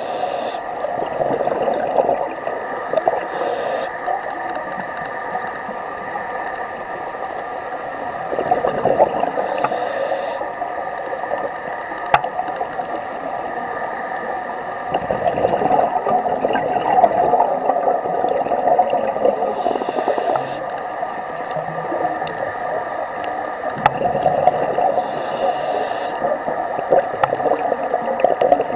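Underwater sound of a scuba diver breathing through a regulator: a few short hissing inhalations and rougher bubbling exhalations every several seconds, over a steady droning hum.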